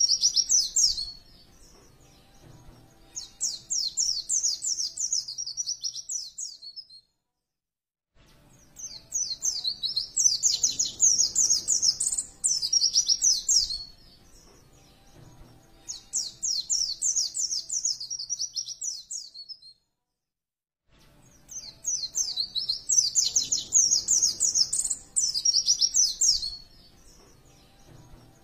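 White-eye (pleci) song from a masteran recording: bursts of rapid, high twittering chirps, each a few seconds long, repeating with short pauses. Twice the pause drops to dead silence, where the recording is cut and looped.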